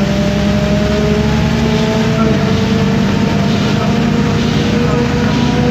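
City bus underway, its MAN D0836 diesel engine running steadily under a thin drivetrain whine from the ZF automatic gearbox and differential that rises slowly in pitch as the bus gathers speed.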